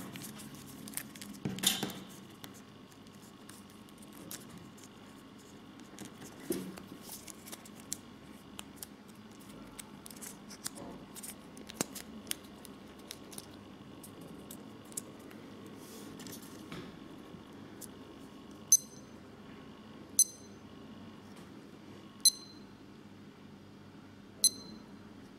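Small clicks and rustles of a Casio F-91W digital watch's resin strap and case being handled and buckled on the wrist, then four short high electronic beeps from the watch, a second and a half to two seconds apart near the end, as its buttons are pressed in stopwatch mode.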